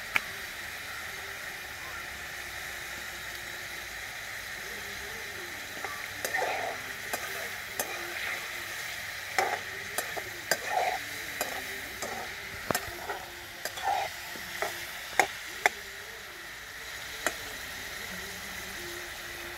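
Raw prawns frying and sizzling in a steel kadai. From about six seconds in, a slotted metal spatula stirs them, knocking and scraping against the pan in a string of sharp clicks.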